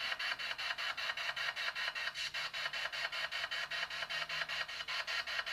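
Ghost-hunting spirit box sweeping through radio frequencies: a steady train of choppy static pulses, about eight a second.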